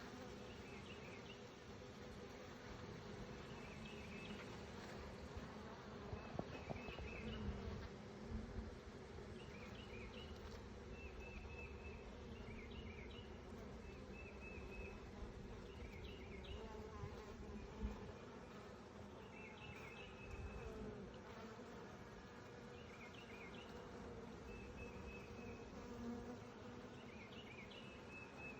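Honey bees buzzing steadily around an open hive, a low hum. A short high chirp repeats every second or two, with a few soft knocks in the first half.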